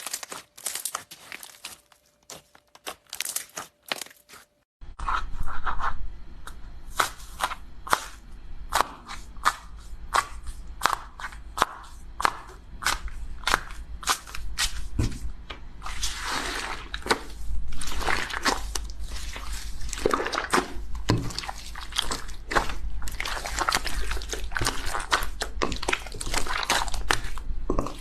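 Slime being squeezed, poked and stretched by hand, with many quick sticky clicks, pops and crackles. The first few seconds hold only scattered clicks. About five seconds in a low steady hum sets in and the popping becomes dense and continuous.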